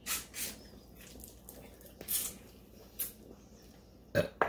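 Mouth noises of a person eating crab with his hands: about five short slurping and sucking sounds spaced a second or so apart.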